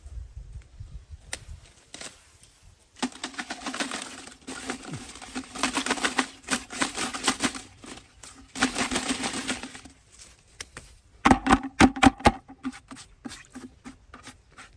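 Leafy branches with red ant nests being shaken and rustled inside a plastic bucket, leaves crackling against the bucket for several seconds at a time, to knock the ants off into it. Near the end come a quick run of loud knocks as the branch strikes the bucket.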